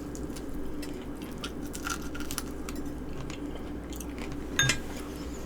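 Close-up chewing and biting of food, with small crunches and wet mouth clicks scattered throughout and one sharper click about four seconds in. A steady low hum runs underneath.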